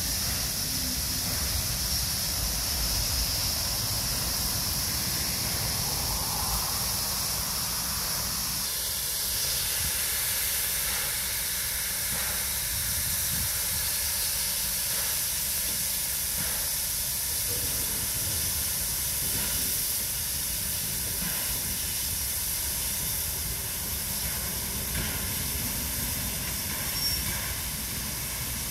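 Steady hiss of steam from NSWGR C38-class Pacific steam locomotive 3801, its cylinder drain cocks venting as it moves slowly, over a low rumble.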